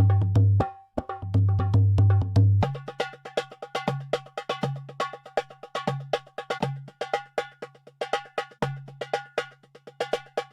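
Intro music: a percussive, wood-block-like beat over a deep bass line. About two and a half seconds in, the beat turns faster and denser, at around four to five strokes a second.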